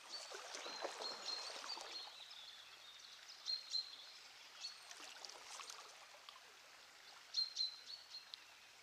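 Fast river water flowing over a shallow riffle, a faint steady rush that is slightly fuller in the first couple of seconds. Over it, a small bird calls repeatedly in short, high chirps.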